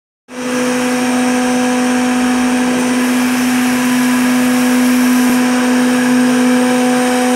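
Zhan Fei three-head CNC mortising machine running, its spindle motors giving a steady pitched hum over a hiss.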